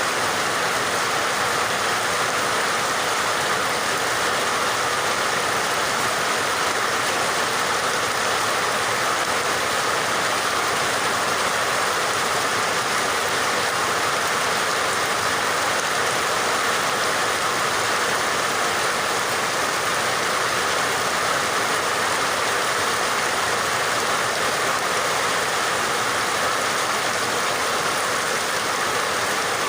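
Steady, unbroken rain: an even hiss of rainfall with no distinct drops or changes.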